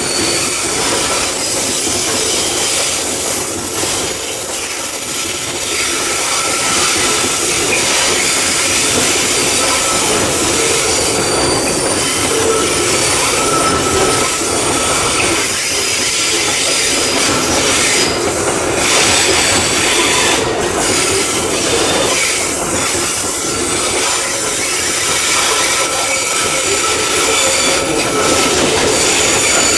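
Loaded coal wagons of a long Babaranjang coal train rolling steadily past on a curve: a continuous rumble and clatter of wheels on rail, with thin high wheel squeals coming and going as the wheels grind through the curve.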